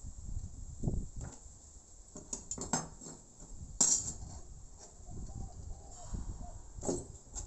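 Flat steel strips handled and set down on a wooden workbench among hand tools: scattered light metallic clinks and knocks, the sharpest about four seconds in.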